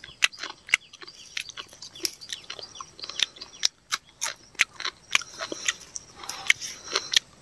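A person chewing and biting food close to the microphone, probably chili peppers: an irregular run of crunches and wet mouth clicks.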